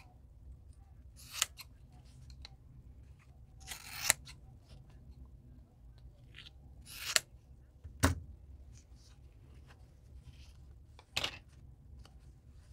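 Scissors cutting through wide satin ribbon: about five separate sharp snips a couple of seconds apart, with fainter handling noises in between.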